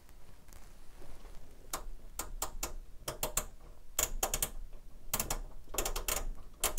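Sharp, irregular clicking of the FG085 function generator's controls being worked by hand to adjust the frequency. The clicks start a couple of seconds in and come singly and in quick pairs and triples.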